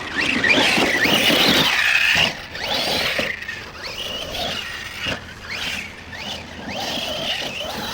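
Brushless electric motor and drivetrain of an Arrma Outcast 1/8 stunt truck whining, swooping up and down in pitch again and again as the throttle is pumped, loudest in the first couple of seconds.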